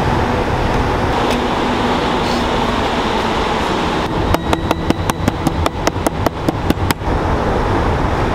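Steady surf and wind noise. In the middle comes a quick run of about a dozen sharp clicks or taps, roughly five a second, lasting close to three seconds.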